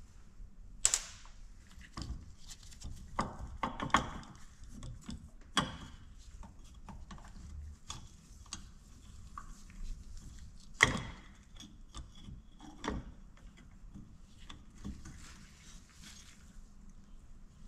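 Irregular sharp metallic clicks, taps and clinks of hand tools working loose the fork inside a Detroit Diesel DW-LS governor. The strongest strikes come about a second in and near eleven seconds.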